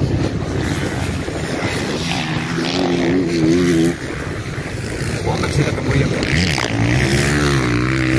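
Motocross bike engines running on the track, their pitch rising and falling as the riders work the throttle, with a brief dip in loudness about four seconds in.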